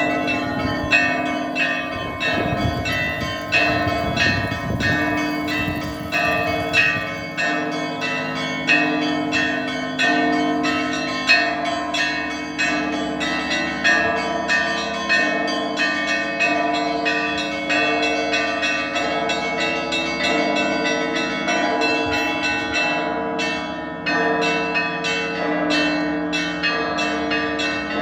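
Russian Orthodox church bells rung together in a continuous peal: small bells struck rapidly several times a second over the sustained tones of the larger bells.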